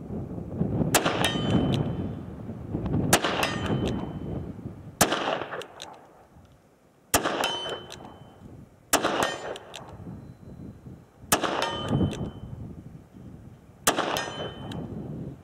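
Seven shots from a Smith & Wesson 686 Plus .357 Magnum revolver, about two seconds apart, each followed by the brief ring of a steel silhouette target being hit.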